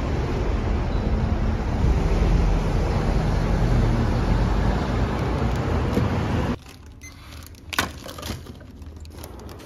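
Steady rumbling noise that cuts off abruptly about six and a half seconds in, leaving a quieter background with a few light clicks.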